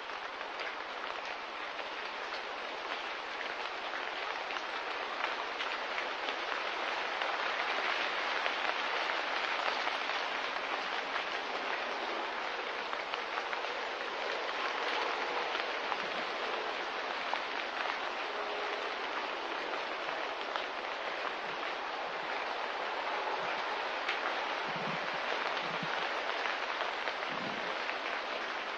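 Light rain falling steadily: a dense, even hiss of fine drops. A few soft low thumps come near the end.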